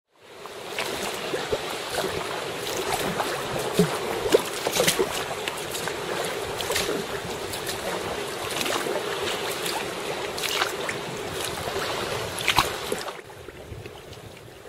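Choppy sea water sloshing and splashing around rocks and a sea kayak, with many small sharp splashes. About thirteen seconds in it drops to a quieter lapping.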